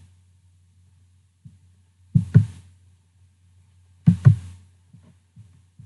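Two pairs of quick clicks about two seconds apart, with a few fainter ticks, over a faint steady low hum: a computer mouse being clicked.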